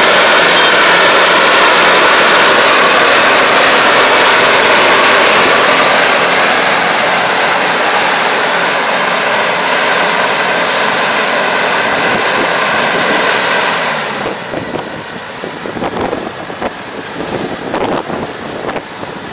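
Kubota DR575 five-row combine harvester running, a loud steady machine noise with a whine. About fourteen seconds in it drops sharply, leaving a quieter, uneven sound.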